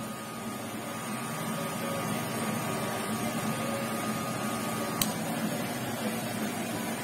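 Electric hair clippers with a No. 1 guard running steadily with a thin high whine over a low hum while blending a fade line. About five seconds in a sharp click cuts the whine off as the clippers are switched off, and a low steady hum carries on.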